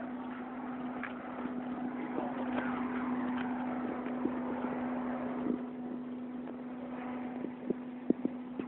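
Tow truck's engine running steadily with an even hum, and a few sharp clicks near the end.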